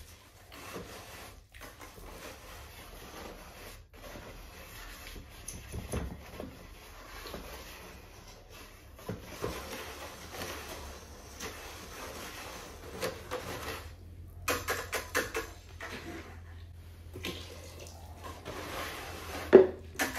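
Wet glaze slurry being stirred and sloshed in a bucket, with scraping and a run of clatters against the bucket, and a sharp knock near the end.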